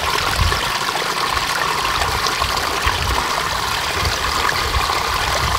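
Steady rushing outdoor background noise, even and continuous, with uneven low rumbles underneath.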